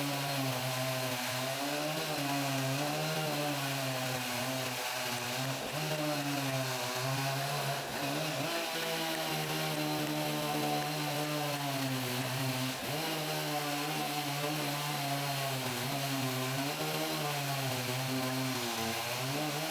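Chainsaw running steadily, its pitch wavering slightly up and down, with two brief dips about 8 and 13 seconds in.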